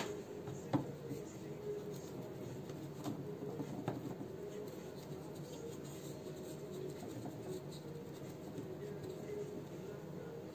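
Faint scratching of a small paintbrush working liquid antique powder into the carved relief of a cast frame, with a few light taps about a second in and again around three to four seconds in, over a steady low hum.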